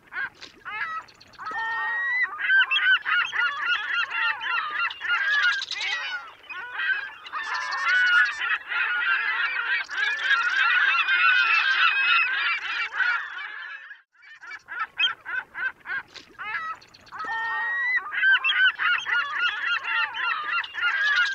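A flock of waterbirds calling loudly and without let-up, many calls overlapping. There is a brief break about fourteen seconds in, then the calls resume.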